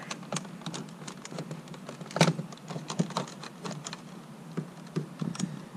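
Plastic clicking and snapping as a trim puller pries up a clipped-in window switch trim panel, with irregular small clicks and two sharper snaps about two and three seconds in.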